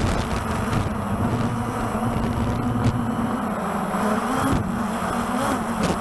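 Walkera TALI H500 hexacopter's rotors humming steadily, the pitch sagging and rising again a few times as the motors pulse to hold position in high wind. Heavy wind buffets the onboard camera's microphone.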